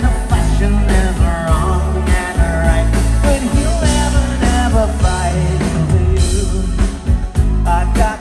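Live rock band playing through a loud stage PA: a male lead voice singing over electric guitars, bass guitar and drums.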